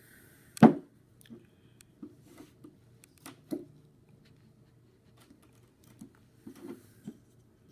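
Hands working at the metal cap of a small glass drink bottle that is hard to open: a sharp knock about half a second in, then scattered small clicks and taps of fingers and cap against the glass.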